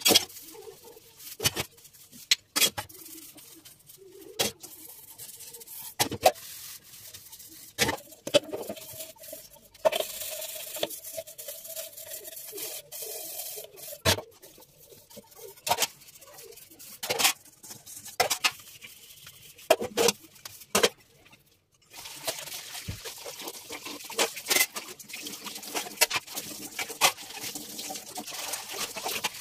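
Stainless steel utensils clanking and scraping against each other and the sink as they are washed by hand, in irregular sharp knocks. Tap water runs into the sink, steadily over the last several seconds.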